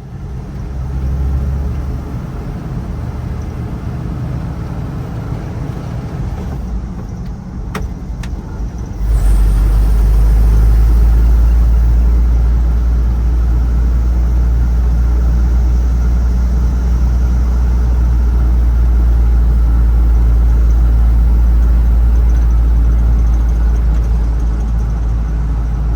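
A 1964 Ford F100 pickup's engine running with a steady deep rumble. It gets louder and deeper about nine seconds in.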